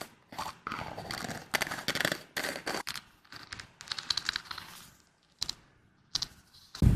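Close-miked ASMR trigger sounds: crisp clicking and scratching in short bursts with brief pauses. A much louder, heavier burst starts right at the end.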